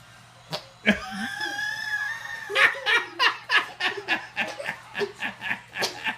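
Laughter: a long high-pitched laugh starting about a second in, then quick giggles several a second.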